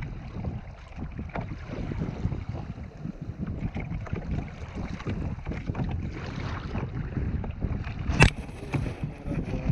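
Wind buffeting the microphone, with water chopping against a kayak hull: a dense, rough rumble. About eight seconds in there is one sharp, loud knock with a short high ringing after it.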